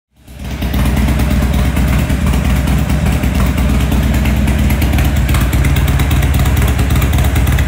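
Buell XB9SX's air-cooled V-twin engine idling steadily, running smoothly after a throttle position sensor reset.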